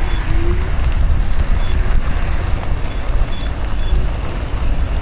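Heavy wind rumble on the microphone mixed with road noise from a Kukirin G2 Master electric scooter being ridden.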